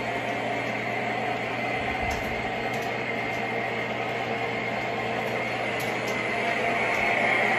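O scale model trains running on the layout track: a steady rumble of wheels and motors, a little louder near the end.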